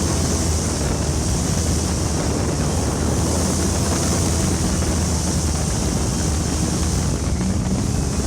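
Jet boat running at a steady cruise: an even engine drone with water rushing past, and wind buffeting the microphone.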